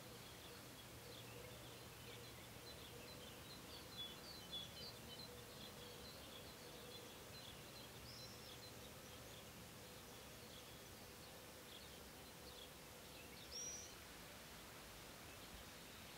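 Faint outdoor birdsong: many small, high, short chirps from songbirds in the background, with a short rising whistle about 8 seconds in and a louder one near the end.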